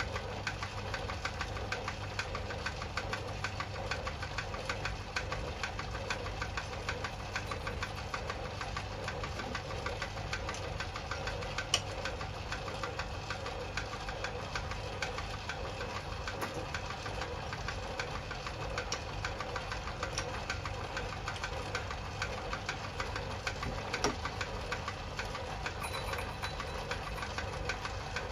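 Myford ML7 lathe running steadily, spinning a cast flywheel on a mandrel as a tool takes a facing cut on its outside face, with an even rapid patter over a low hum. A sharp click comes about twelve seconds in.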